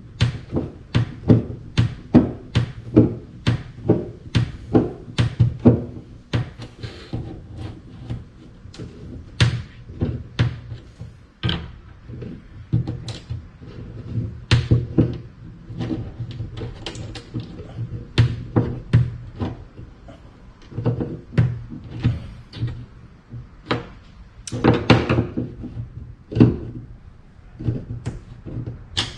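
Series of sharp knocks and clunks from deck hardware being handled and screwed into a wooden kayak deck, quick and fairly even at first, then scattered, over a steady low hum.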